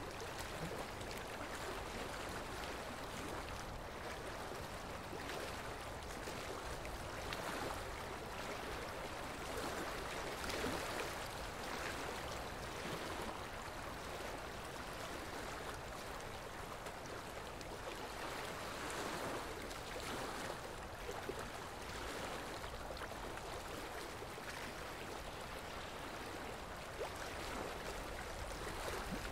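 A steady rushing sound like flowing water, swelling slightly now and then, with no distinct strikes or tones.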